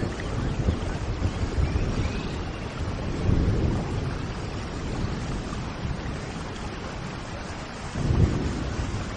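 Steady rain with low rumbles of thunder that swell about three seconds in and again near the end, and a few faint bird chirps above the rain.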